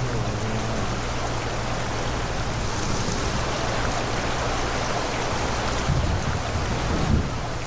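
Rushing floodwater and rain as one steady wash of noise, with a low hum underneath and two brief low thuds near the end.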